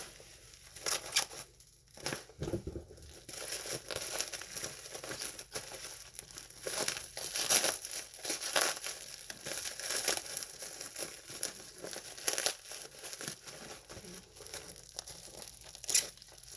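Bubble wrap and plastic packaging crinkling and crackling as it is handled and pulled away to unwrap a camcorder, in irregular bursts.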